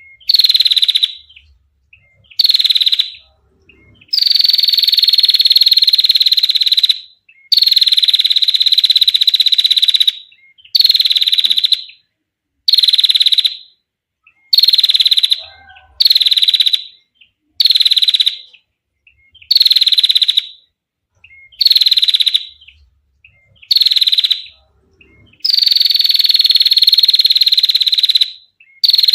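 Female prenjak (prinia) giving its long trilled 'ngetir' call in repeated bouts. Each bout is a fast, buzzy rattle on one high pitch that settles slightly lower as it goes on. Most bouts last about a second, three run about three seconds, and short silences separate them.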